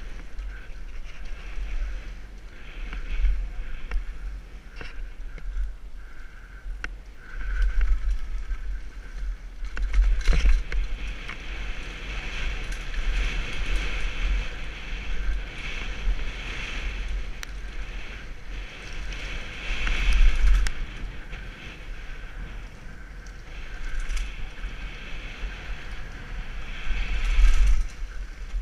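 Mountain bike ridden fast down a dirt trail: wind buffeting the microphone and tyre noise on dirt, with sharp knocks from the bike over bumps, loudest about ten and twenty seconds in and again near the end.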